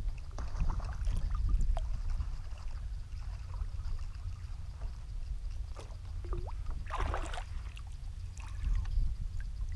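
Water trickling and lapping around a kayak over a steady low rumble, with a short burst of splashing about seven seconds in.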